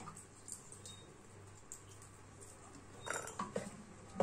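Wooden spatula knocking and scraping in a metal pressure cooker as sardines in tomato sauce are stirred: a few faint clicks, then a short run of knocks about three seconds in and a louder knock at the very end.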